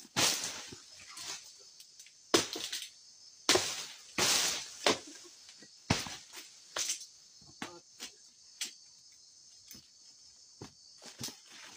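A long harvesting pole hacking at an oil palm's fronds: several sharp cracks with rustling, the loudest in the first half. Insects keep up a steady high drone underneath.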